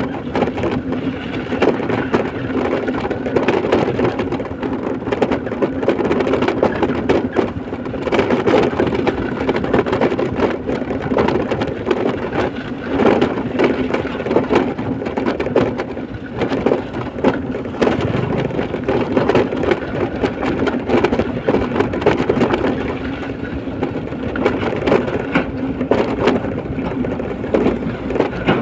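A moving vehicle's steady engine and road noise, with constant rattling and clatter over it.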